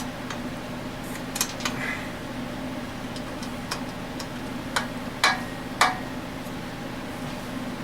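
Metal tools and small-engine parts clinking and tapping several times during teardown of the engine, the two loudest knocks coming close together near the end, over a steady machine hum.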